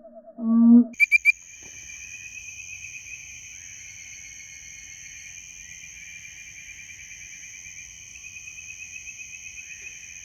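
Dense nighttime chorus of insects: a steady high-pitched drone with a fast pulsing trill beneath it. It starts about a second in, after a low hooting note and a few sharp clicks.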